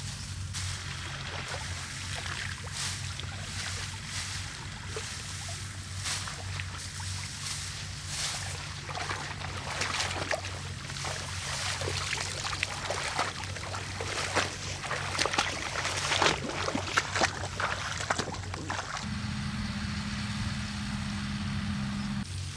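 A small engine running steadily, with a crackling, rustling clatter of many short strikes over it, busiest in the middle. About three-quarters of the way through, the engine note shifts higher.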